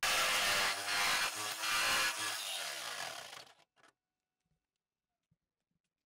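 Corded jigsaw cutting through the sheet-metal fender of a Land Rover Discovery 2 for the snorkel opening. It runs loud for about three and a half seconds, then cuts off suddenly.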